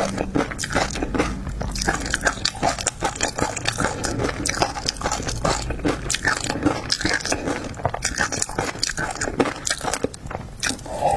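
Close-miked eating of seafood: biting and chewing with dense, rapid, irregular crunching and crackling.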